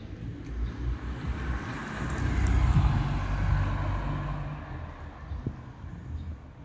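A vehicle passing on the street: a rushing noise that swells to a peak about three seconds in and fades away, over a steady low rumble.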